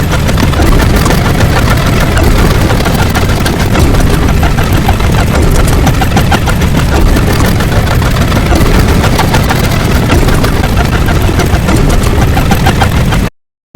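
A loud, dense mass of sound effects, mostly a heavy engine-like rumble with many small clicks through it. It cuts off abruptly just before the end.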